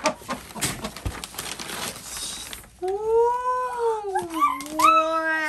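Tissue paper crinkling and rustling as it is pulled back from a doll box. About halfway through, a long drawn-out vocal cry rises and then slides down in pitch.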